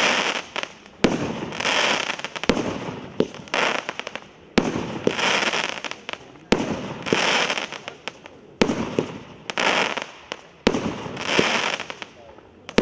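Maxsem 30 mm, 19-shot fireworks cake firing one shot about every two seconds, each a sharp report followed by about a second of dense crackling from the bursting crackle stars.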